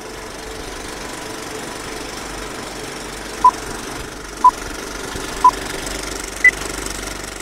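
Film projector running steadily, with a countdown leader's beeps over it: three short beeps a second apart, then a higher-pitched beep a second later.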